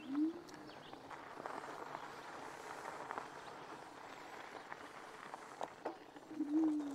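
Fat tires of a Lacros Thunder e-bike rolling over a gravel road: a steady crunching hiss with light scattered clicks. A brief rising hum comes as the bike sets off, and a short wavering hum comes near the end.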